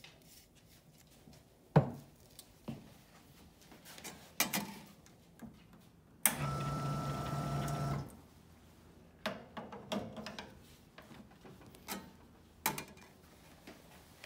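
Clicks and knocks of espresso gear being handled, the loudest a sharp knock about two seconds in. About six seconds in, the Rancilio S27 espresso machine's pump hums steadily for under two seconds, then cuts off.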